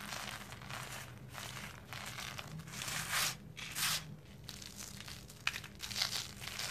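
Dry sand-and-cement pieces crunching and crumbling between fingers, with the loose powder rustling as it is rubbed and swept by hand. Irregular gritty bursts, the loudest about three to four seconds in.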